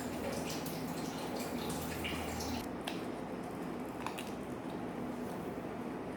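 Slime being worked by hand: small wet clicks and drips over a steady background with a low hum, the hum dropping a little about two and a half seconds in.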